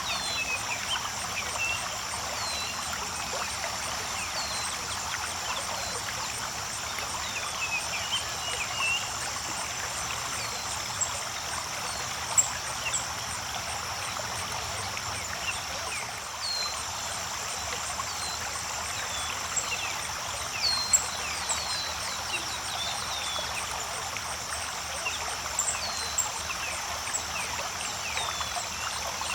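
Creek water running steadily, with many short high chirps scattered through it over a steady high-pitched drone.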